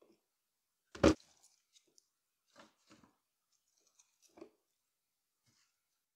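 Kitchen handling sounds: one sharp knock about a second in, then a few softer taps and scrapes.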